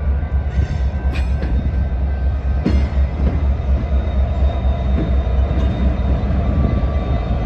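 Norfolk Southern diesel-electric locomotive running light past at close range, its engine rumbling steadily, with a few sharp clicks from its wheels over the rail joints and junction.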